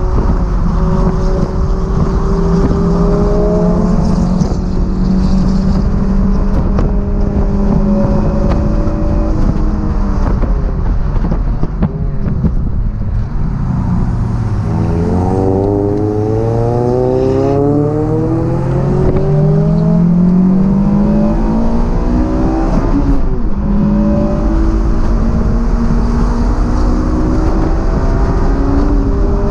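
Honda S2000's four-cylinder engine heard from inside the open-top cabin on track, with wind rush. The revs fall over the first third, then climb in a long rise under acceleration about halfway, drop sharply about three-quarters through, and climb again near the end.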